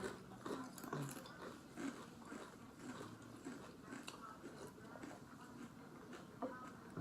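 Faint, irregular crunching of someone chewing kettle-cooked potato chips.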